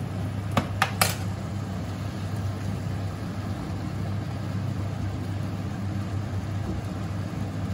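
A steady low hum of kitchen machinery runs throughout, with three sharp clicks about a second in.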